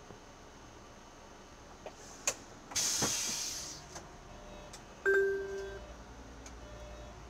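Inside a city bus cab: a couple of clicks, then a loud hiss of compressed air lasting about a second from the bus's pneumatic system. About five seconds in a short two-tone beep sounds, over the low running of the bus's engine.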